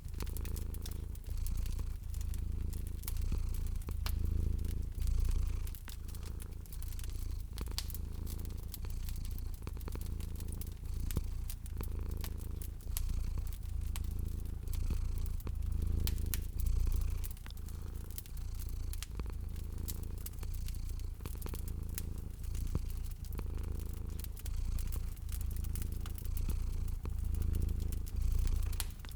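A cat purring steadily, the low purr swelling and fading with each breath about every two seconds, over a fire crackling with many small pops and snaps.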